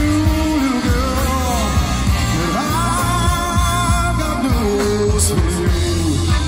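Live brass-rock band playing a rock and soul number: saxophones and trumpet over keyboard, guitar, bass and drums, with a lead singer.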